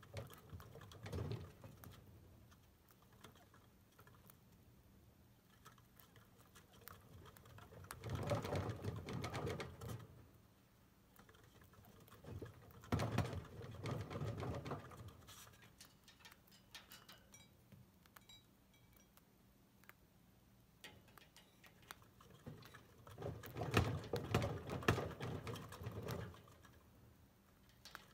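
A chinchilla running in its exercise wheel in four bursts of a few seconds each, the wheel rumbling under a rapid patter of feet, with quieter pauses between runs.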